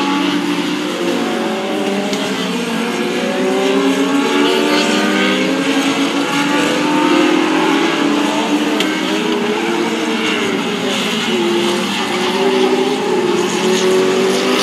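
A field of Legends race cars running at speed, their four-cylinder motorcycle engines overlapping, with pitches rising and falling as the cars accelerate, lift and pass.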